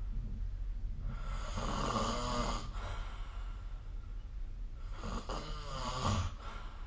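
A sleeping person snoring: two snores, each about a second and a half long, roughly three and a half seconds apart.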